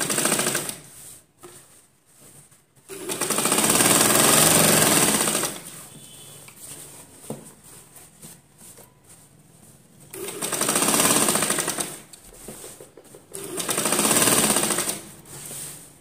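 Domestic sewing machine stitching in four short runs of a second or two each, with pauses between as the fabric is turned to follow the curve of a neckline seam.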